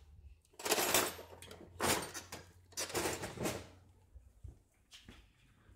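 A fork scraping through the cooked omelette, three scraping swishes about a second apart, then a few light clicks near the end.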